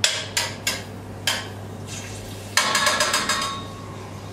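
A metal spoon clinking and scraping against a bowl and a stainless steel saucepan as chopped onion is spooned into the olive oil: a few sharp clinks, then a quick rattling run of scrapes a little past halfway.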